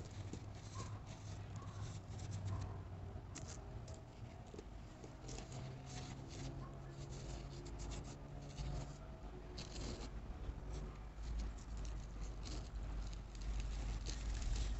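Coloured baking soda, not fully dried, being crumbled and squeezed by hand: irregular soft crunches and crackles, over a steady low hum.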